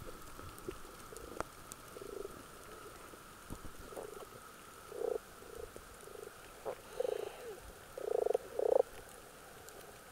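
Underwater bubbling and gurgling from a diver's exhaled air, in short bursts that come more often and louder in the second half, heard over a faint steady tone with scattered faint clicks.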